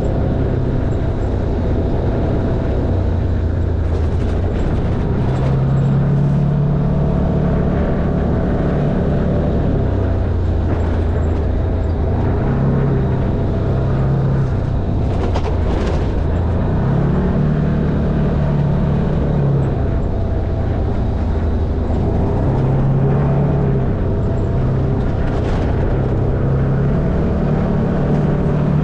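Side-by-side off-road vehicle's engine running while driving a rough dirt trail, its note going up and down with the throttle, with a few short knocks and rattles.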